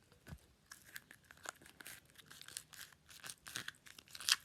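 Paper crinkling and rustling as a rolled paper message is handled, in scattered short crackles with a louder one near the end.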